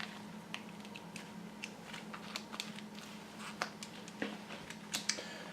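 Faint, scattered light clicks and rattles of a saw chain's links being handled and seated in the groove of the guide bar, over a faint steady hum.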